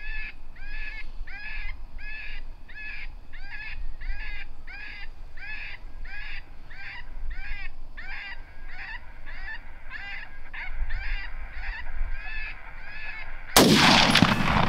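A predator call repeating a short, rising-and-falling squalling cry about twice a second, used to lure in a coyote. Near the end a single loud rifle shot cuts in.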